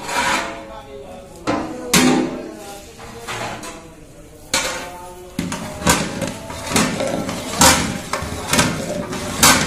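Metal clanks from a large cooking pot on a wood fire: its lid is lifted off and set down, then a long ladle knocks against the pot, about one clank a second in the second half.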